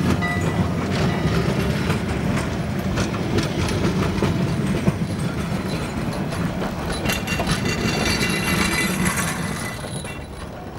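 Narrow-gauge railway cars and a wooden passenger coach rolling past on the rails, their wheels clicking and rattling with brief high squeaks. The sound fades near the end as the last car moves away.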